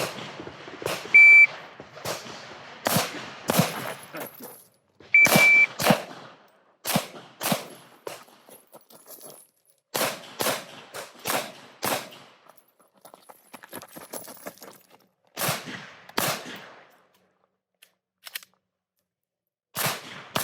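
Shot-timer beep, then a timed IDPA stage string of pistol shots, mostly fired in quick pairs, with pauses between groups while the shooter moves to new positions.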